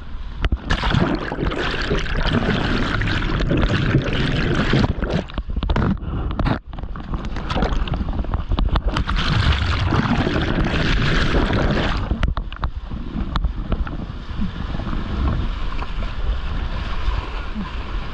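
Whitewater rushing and splashing around a kayak running rapids, loud and unsteady, with a brief sudden drop about six and a half seconds in.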